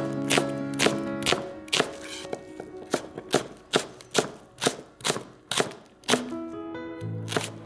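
Chef's knife thinly slicing an onion on a cutting board, each stroke ending in a crisp knock of the blade on the board, about two strokes a second, with a short pause near the end before a last cut. Background music with sustained notes runs underneath.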